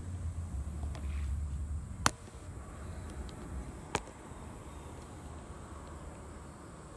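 Outdoor lakeside ambience with faint, steady insect chirring. There is a low rumble for the first two seconds and two sharp clicks, about two and four seconds in.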